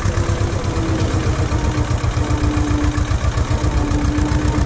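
Ursus C-330 tractor's two-cylinder diesel engine running steadily, with a fast, even low throb from its firing beat.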